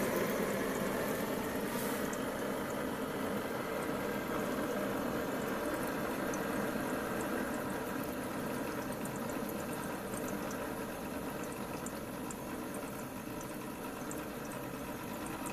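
Propane-fired Stirling engine running steadily and quietly, driving its DC generator under charging load, an even whirr and hiss.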